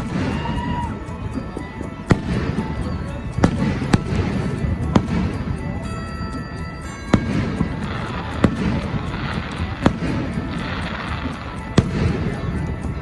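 Fireworks display: about nine sharp bangs of aerial shells bursting, a second or two apart, over a continuous rumble of further explosions.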